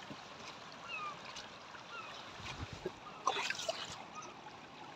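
Shallow freshwater trickling faintly over stones into a rock pool, with small bubbling chirps. A brief patter of splashes and clicking pebbles comes a little over three seconds in as a rock is handled at the water's edge.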